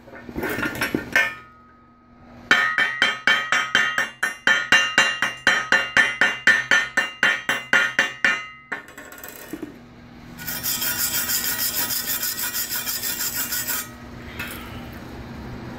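A chipping hammer knocking slag off a fresh 6013 arc-weld bead on steel plate, rapid even strikes for about six seconds. About ten seconds in comes a few seconds of fast, high scraping over the metal as the weld is cleaned.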